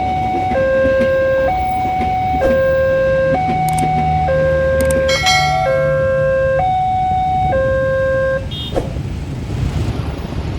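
Indonesian railway level-crossing warning alarm sounding its electronic two-tone signal, a higher and a lower tone alternating just under a second each, which stops about eight seconds in.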